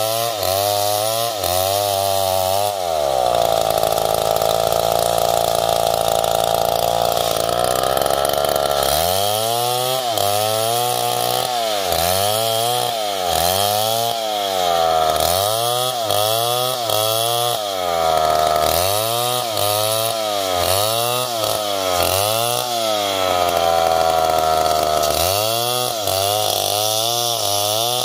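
Stihl MS070 two-stroke chainsaw ripping a coconut log lengthwise into boards, engine pitch rising and falling about once a second as the chain is worked through the cut, with a few longer spells held at high speed.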